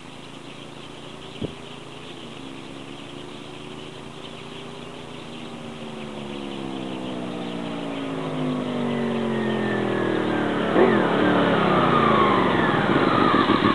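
Honda VFR800 V4 engine through a Wolf underseat exhaust, its note shifting in pitch and growing steadily louder as the bike comes closer. There is a short sharp crack about eleven seconds in.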